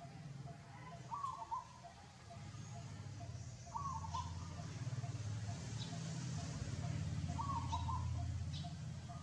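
Three short chirping animal calls about three seconds apart, over a low steady outdoor rumble with a few faint high ticks.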